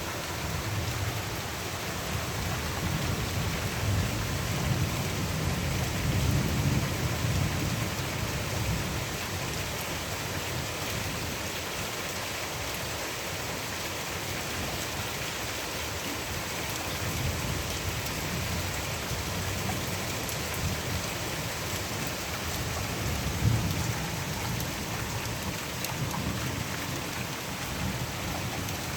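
Steady rain falling, with low rolling thunder swelling a few seconds in and again near the end. One brief sharp tap stands out a little past two-thirds through.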